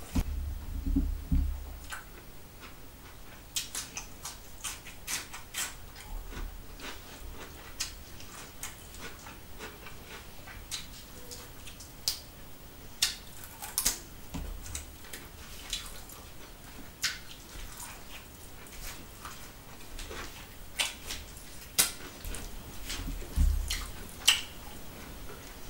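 Close-miked eating sounds of a person eating rice and chicken curry by hand: wet chewing and lip-smacking clicks at an irregular pace, with fingers working the rice on a steel plate. A few dull low thumps about a second in and again near the end.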